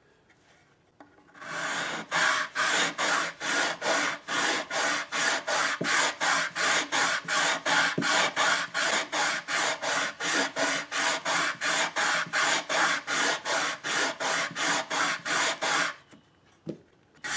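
80-grit sandpaper on a long wooden sanding block rubbed back and forth along a ukulele fretboard to level it, in even strokes of about three a second. The rubbing starts about a second and a half in and stops shortly before the end.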